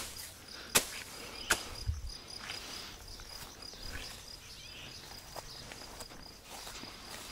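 Insects chirping: a steady, rapidly pulsing high chirp throughout, with a few sharp clicks in the first two seconds.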